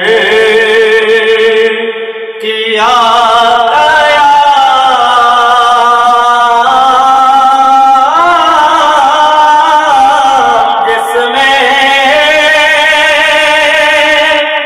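A man's solo voice reciting an Urdu naat in chant-like song, holding long wavering notes of several seconds each. New phrases start about three and eight seconds in.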